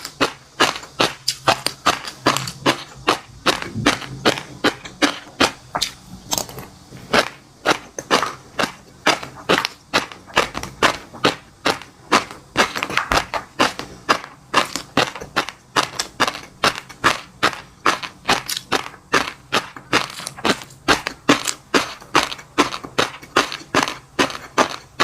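Close-miked eating of fish roe and crunchy seafood: a rapid, unbroken run of sharp crisp crunches and pops, several a second, as the food is chewed.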